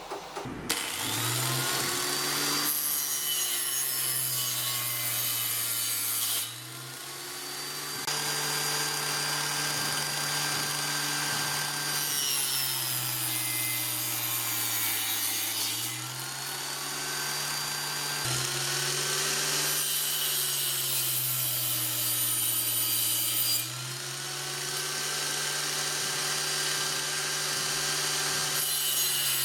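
Homemade table saw driven by an angle grinder starting up about a second in, then its blade cutting through wood in several long passes. The motor keeps running between cuts, with short lulls where the cutting noise drops away.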